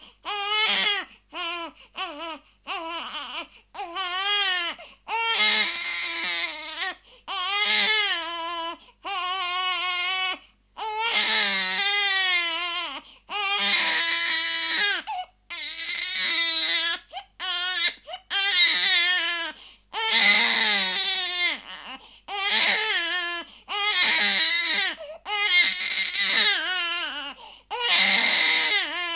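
A baby crying: a run of wailing cries, each a second or two long, with short breaths between them and the pitch wavering within many of the cries.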